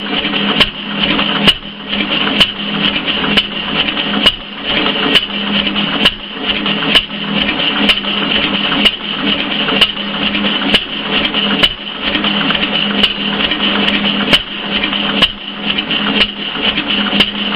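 Friend Mfg Co stationary gas engine running. It makes a steady mechanical clatter, with a sharp bang coming a little less than once a second.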